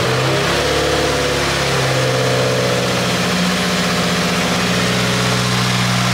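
Subaru WRX's turbocharged flat-four engine idling steadily with the hood open and an aftermarket COBB intake fitted, a strong hiss over the engine note.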